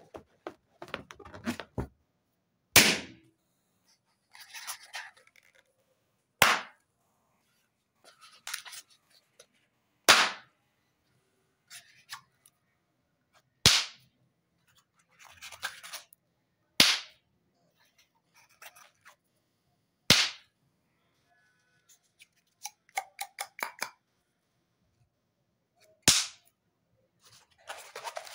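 Latex balloons squeezed by hand until they burst: about seven sharp pops a few seconds apart, with faint rubbing and squeaking of the rubber under the fingers between pops.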